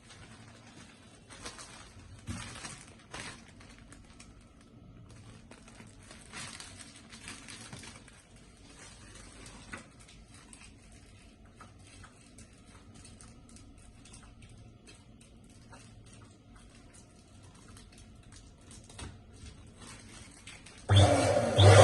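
Quiet handling of rubber balloons: soft rubbing, crinkling and scattered light taps, with a few louder knocks in the first ten seconds and no loud pop. Near the end a loud, steady whirring noise with a low hum starts suddenly.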